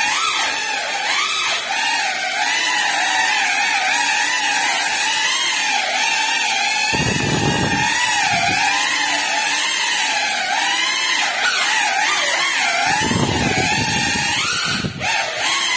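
Small ducted FPV drone's brushless motors and propellers whining, the pitch wavering constantly up and down with the throttle. There are two spells of low rumbling, about seven and about thirteen seconds in.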